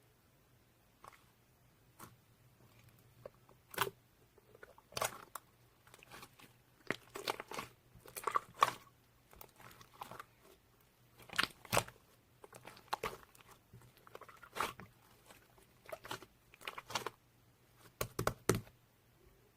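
Hands pressing and stretching mixed slime, making irregular sticky clicks and crackly pops, sometimes single and sometimes in quick clusters, a few a second.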